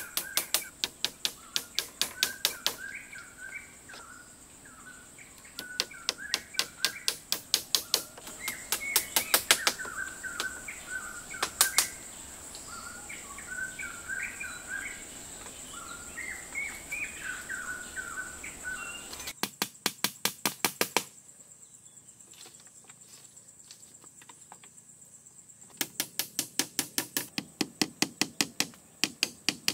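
Rapid runs of sharp taps, about five a second, coming in bursts of a few seconds with pauses between, typical of hand-tool striking during building work. Songbirds chirp in the background through the first part.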